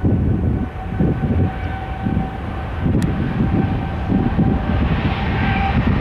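Jet airliner engines running: a steady whine over a low rumble, with the hiss growing louder toward the end. Wind buffets the microphone in uneven gusts.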